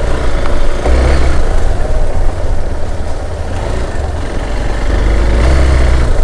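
Hero XPulse 200 motorcycle engine running while it is ridden over a rough dirt trail, its note rising and falling with the throttle. Heavy wind rumble on the microphone swells twice.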